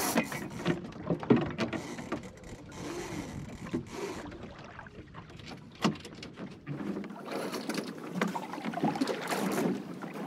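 Irregular knocks and clatter of gear handled in a small plywood sailing dinghy, over a low wash of water and wind.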